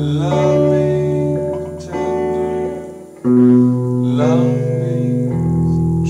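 Guitar chords ringing out with a man singing along. The sound fades just before three seconds, then a loud new chord is struck.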